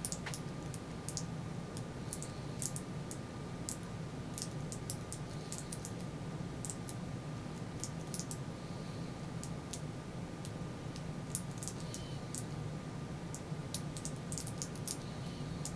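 Number wheels of a Master three-wheel combination padlock clicking through their detents as they are turned, in irregular runs of small sharp clicks, over a steady low hum.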